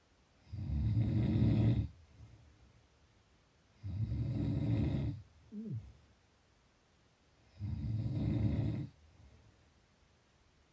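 A person snoring in slow, regular breaths: three snores about three and a half seconds apart, each lasting just over a second. A brief falling whistle follows the second snore.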